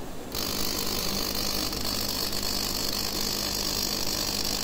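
Plasma surface-treatment nozzle on a compact CNC machine running with a steady sputtering hiss that comes in about a third of a second in, over a low hum. The sputter comes from feeding the plasma from the machine's small internal air pump rather than external compressed air.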